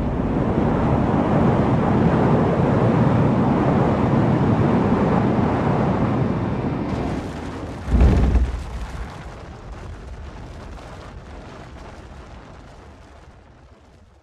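Airliner crash noise: loud, continuous and dense, heaviest in the low end, lasting about seven seconds. Then comes a single heavy low thump, followed by softer noise that fades away.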